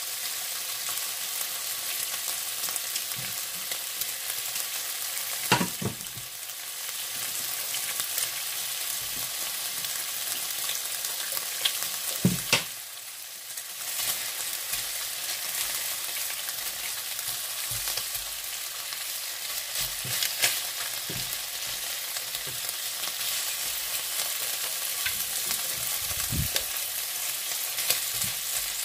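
Sugar-cured pork tocino sizzling steadily as it fries in a little oil, after its braising water has cooked off. Tongs knock sharply against the pan a few times as the slices are turned.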